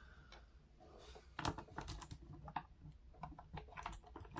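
Faint, scattered clicks and taps of a Logitech G915 TKL keyboard being handled while its back screws are undone, with one sharper knock about a second and a half in.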